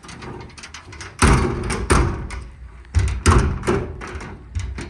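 Steel tool drawers and the metal compartment door of a truck service body being pushed shut: a series of sharp metal thuds and bangs, the loudest a little over a second in and about three seconds in.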